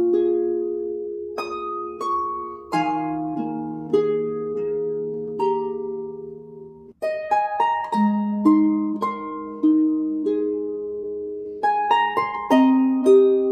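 Background music: a slow melody of single notes, each starting sharply and ringing away, with low held notes beneath. It drops out for a moment about seven seconds in, then goes on.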